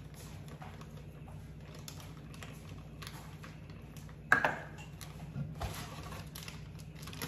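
Plastic bag of pancake mix crinkling and rustling in small irregular crackles as it is handled and tipped into a measuring cup, with one sharp knock about four seconds in.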